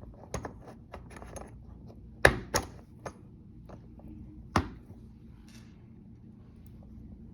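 Die-cast zinc IP67 cable connector being pushed onto a black plastic bulkhead connector and its bayonet coupling turned to lock: a few small scrapes and clicks, a sharp double click about two seconds in and another sharp click about four and a half seconds in as it latches.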